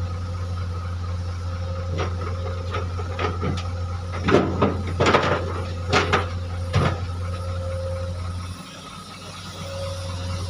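Excavator's diesel engine running with a steady low drone while boulders knock and clank against steel, several sharp knocks in the middle. The engine drone drops away near the end.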